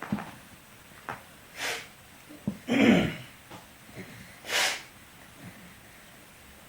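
Baby making short breathy puffing noises: three puffs of breath, the loudest about three seconds in with a low voiced grunt, with a few small mouth clicks between them.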